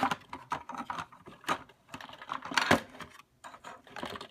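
Small hard plastic toy pieces clicking and clacking as they are handled and fitted together, with one louder clack a little under three seconds in.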